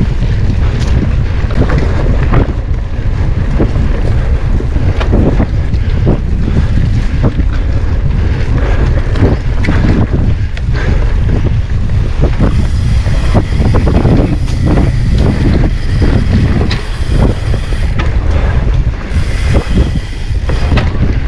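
Wind buffeting the microphone of a camera riding on a mountain bike, with frequent irregular knocks and rattles as the bike goes over rough ground.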